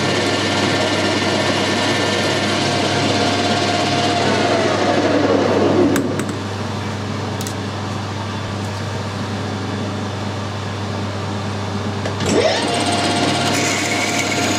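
A metal lathe running with a flywheel casting in its four-jaw chuck winds down about four to six seconds in. A few sharp clicks follow while it stands, then it spins back up about twelve seconds in, ready to drill a 6 mm tapping hole with a twist drill in the tailstock chuck. A steady lower mechanical hum carries on while the chuck is stopped.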